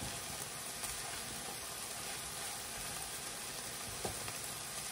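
Chicken cooking in a hot pan, sizzling in a steady hiss, with a few faint ticks.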